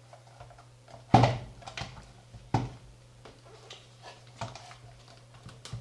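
Knocks and light clatter from the opened case of an Aneng AN888S bench multimeter being handled on the bench, with two sharper knocks about a second and two and a half seconds in, over a steady low hum.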